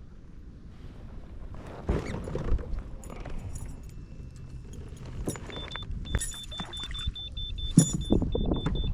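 Knocks and rattles of a bass being landed and handled in a kayak. From about halfway through, a rapid electronic beeping runs on.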